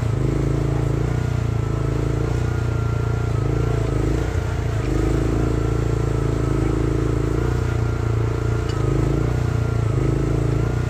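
Chery one-ton mini excavator's Briggs & Stratton 13.5 hp engine running steadily under load while digging, with a high whine that wavers slightly in pitch.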